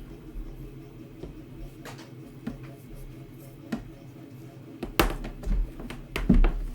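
Clicks and knocks of hands handling a desoldering station and hooking up its power cable: a few scattered clicks, then a cluster of louder knocks near the end, over a faint steady hum.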